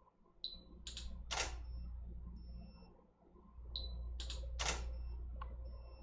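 A water-drop photography rig triggered by a Pluto trigger fires twice. Each time there is a short high chirp, then two sharp camera-type clicks about half a second apart, then a brief high electronic beep.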